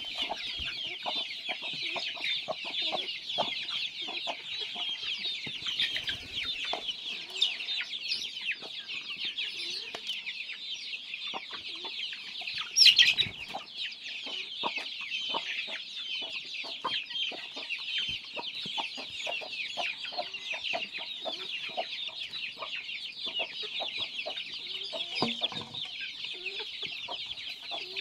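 A flock of free-range desi and Kaveri chickens clucking, many short calls overlapping, over a steady high-pitched chirping chorus. One louder call stands out about thirteen seconds in.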